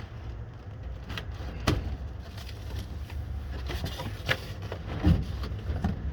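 Scattered knocks and scrapes from handling a boxed portable fridge, the loudest knock about five seconds in, over a steady low rumble.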